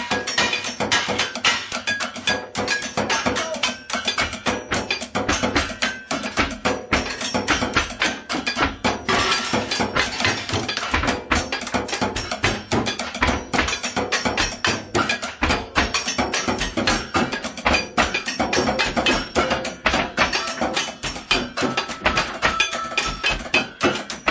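Improvised drumming on kitchen objects: a fast, unbroken stream of sharp knocks and clicks, several strikes a second, some leaving a short ringing tone.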